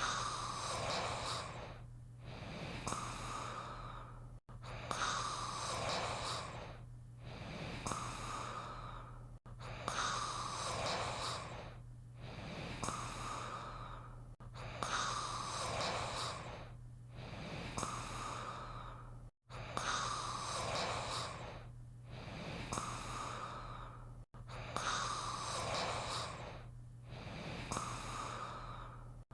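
Cartoon snoring sound effect: a drawn-out, noisy snore in and a shorter breath out, repeated as an identical loop about every five seconds, six times over.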